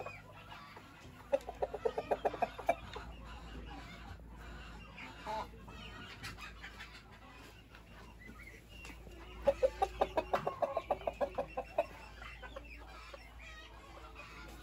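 Dominant Brown D-102 breeder chickens clucking: a quick run of short clucks, about eight a second, about a second in, and a longer run about nine seconds in.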